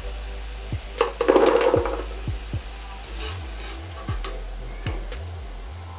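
Raw maida dough rolls dropped from a wire strainer into hot frying oil in a kadhai: a loud sizzle rises about a second in and fades. The metal strainer clinks against the pan a few times after it.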